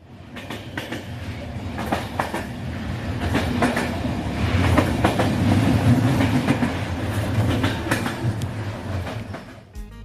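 A rumbling, clattering noise with irregular clacks. It builds up, is loudest around the middle, and dies away shortly before the end.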